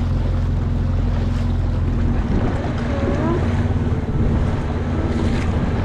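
Dinghy outboard motor running steadily, with water washing against the boat and wind on the microphone.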